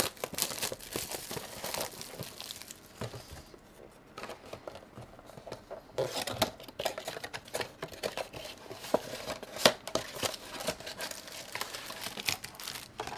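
Clear plastic wrapping crinkling and tearing as it is peeled off a trading-card box by hand. It eases off for a couple of seconds about three and a half seconds in, then picks up again.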